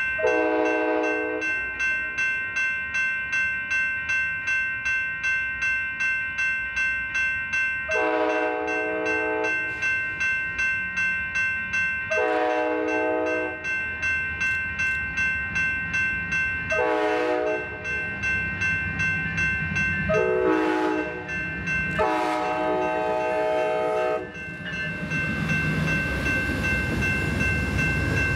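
Locomotive air horn sounding a chord in six blasts, three long ones spread through the first half and then shorter ones, the last held about two seconds, over a grade-crossing warning bell ringing steadily about twice a second. Over the last few seconds the rumble of the train rises as it nears.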